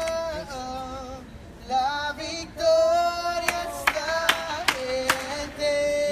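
Unaccompanied worship singing: a voice holds long notes that slide from pitch to pitch, with a few sharp clicks in between.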